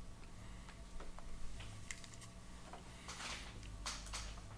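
Faint, scattered clicks of a computer keyboard and mouse over a low steady hum.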